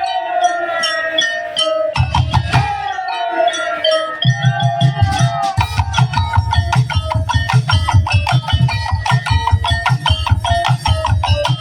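Tongtek ensemble playing: for the first few seconds several pitched tones slide downward over a few deep drum hits, then about four seconds in a fast, steady beat of deep drums and sharp wooden clicks takes over, with melodic notes above.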